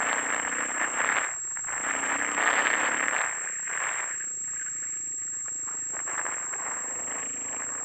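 Dual-sport motorcycle riding a rough dirt road: the engine running under wind rush on the microphone and the rattle of the bike over the bumpy surface, swelling in surges about one and two and a half seconds in. A steady high-pitched whine sits over it.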